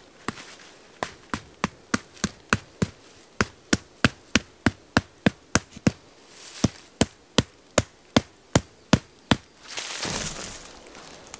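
Tarp peg being hammered into the ground: a run of sharp knocks, about three a second at their quickest. A short rustle of tarp fabric follows near the end.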